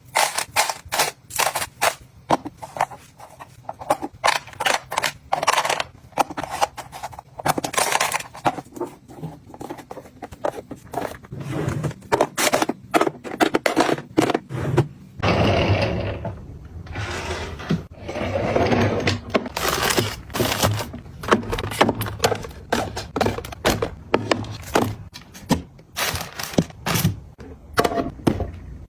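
Objects being handled and set down: a rapid, irregular run of clicks, knocks and scrapes, with a couple of seconds of steady rustling or pouring noise about halfway through.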